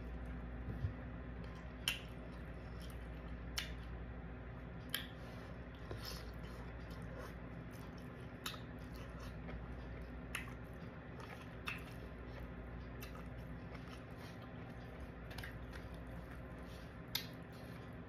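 Close-up eating sounds from a person eating shrimp and broccoli with a plastic fork: quiet chewing with sharp clicks every second or two, over a steady low hum.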